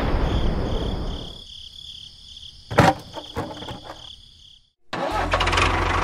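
A few sharp clicks over a steady high tone, then, after a brief dropout, a motor starts running steadily with a low rumble near the end.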